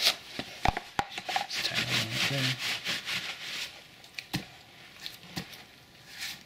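Handling noise: rubbing and scuffing with a few sharp knocks, dying down after about four seconds.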